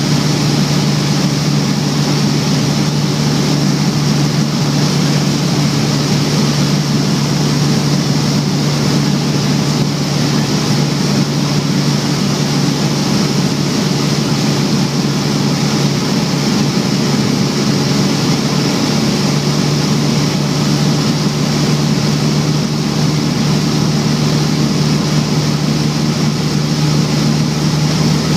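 Single-engine light aircraft's piston engine and propeller running at a steady cruise power, heard from inside the cabin as a loud, unchanging drone with a strong low hum.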